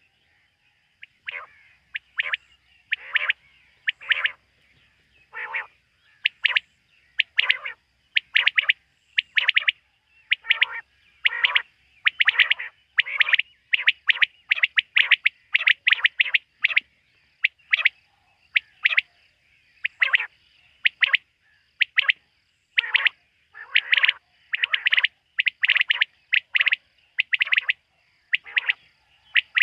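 Quail calling at night, over and over: short, sharp notes in quick clusters of two or three, about one cluster a second.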